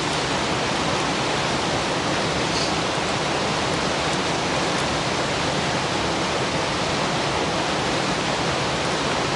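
Steady, even rushing noise of water, with a few faint crackles from the campfire.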